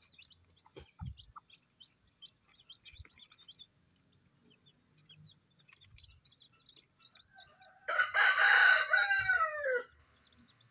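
A rooster crows once, loudly, about two seconds long, near the end, its pitch falling at the close of the crow. Before it, newly hatched chicks peep faintly and high.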